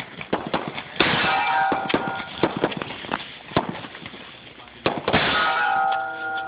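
Two shotgun blasts about four seconds apart, each followed by about a second of ringing as steel targets are hit. Quicker sharp clicks and knocks fill the gaps between the shots.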